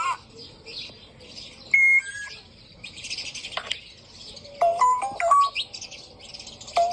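A parrot chirping and chattering, with a brief held whistle about two seconds in and, near the end, a quick run of clean notes stepping up and down in pitch like an iPhone ringtone melody, which the bird mimics.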